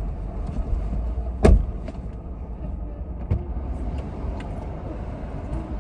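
Low steady rumble of a car, with one loud thump about a second and a half in and a few lighter knocks after it.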